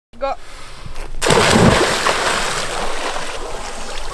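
Cold lake water splashing hard about a second in, as a person plunges in for an ice bath, then churning and splashing on.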